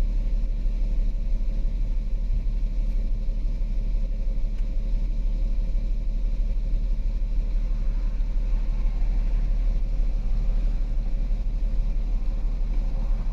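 Volkswagen Passat 3.6-litre VR6 direct-injection engine running at idle, a steady low rumble. The engine runs rough and misfires with fuel rail pressure too low, which the mechanic thinks may mean it is running on low-side fuel pressure alone, with no high-pressure pump output.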